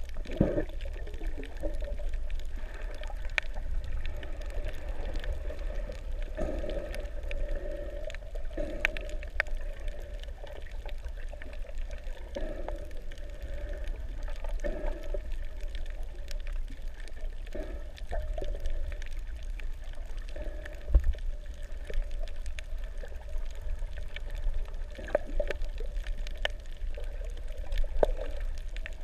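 Water heard with the camera submerged: muffled sloshing and gurgling over a steady low rumble, with scattered faint clicks and one low thump about three-quarters of the way through.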